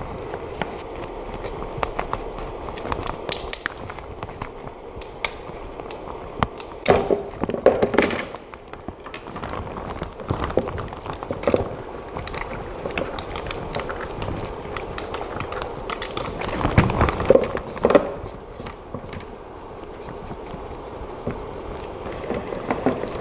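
Hands rinsing a freshly printed resin part in alcohol and handling it: scattered clicks, knocks and rubbing, with louder clattering about 7 and 17 seconds in.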